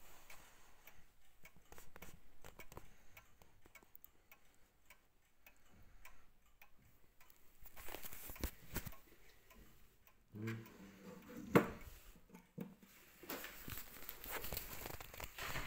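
Junghans pendulum wall clock ticking softly. About eleven and a half seconds in there is one sharp, louder knock, and rustling handling noise rises near the end.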